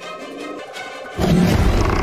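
Background film score music, quiet for about the first second, then swelling suddenly and loudly with deep low notes.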